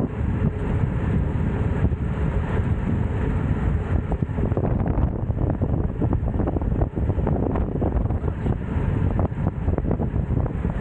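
Wind rushing over a bike-mounted camera's microphone while riding a road bike at speed, a steady low rumble with small scattered knocks from the road.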